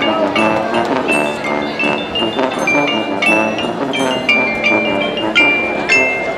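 Marching band music led by mallet percussion: a quick run of struck, ringing metal-bar and wooden-bar notes over sustained lower band tones.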